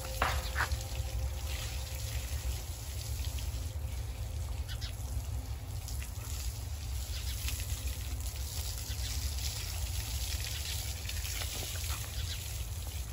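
Water from a garden hose spraying onto a buffalo's back and splashing and trickling on wet brick paving, a steady hiss over a steady low rumble.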